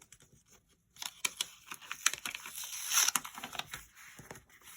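Crinkly paper wrapping being torn open and rustled by hand, with irregular sharp crackles starting about a second in.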